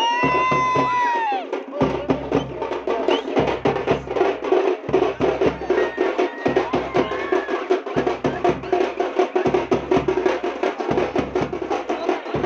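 Loud, fast festival dance drumming, a dense driving beat over a deep low pulse that returns about every one and a half seconds. Near the start a shrill call rises and falls above it.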